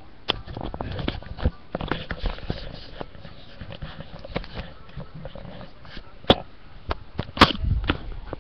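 Close-up sniffing and breathing noises, uneven and irregular, with scattered clicks; two sharp clicks stand out in the second half.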